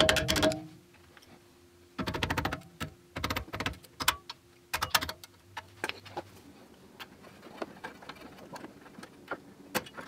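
Hammer tapping a screwdriver used as a punch against the brake pad retaining pins of a BMW F80 M3 caliper, driving the pins loose. Rapid metallic taps come in a burst at the start and again about two seconds in, then scattered single taps and ticks.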